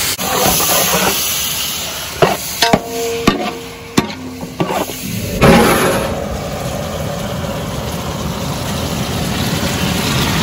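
Chicken cooking in a large aluminium pot: a few sharp metal knocks with a brief ringing about three seconds in, then a loud onset and steady sizzling of the chicken in its juices from about halfway on.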